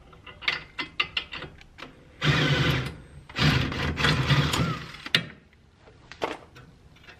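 Cordless impact wrench run in two bursts, a short one then a longer one, undoing a 17 mm brake caliper mounting bolt. It is preceded by light clicks as the tool and socket are fitted to the bolt.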